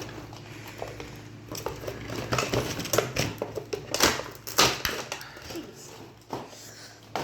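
Small cardboard box and its packaging being pulled and pried open by hand against glued flaps: irregular crackling, snapping and rustling, busiest in the middle.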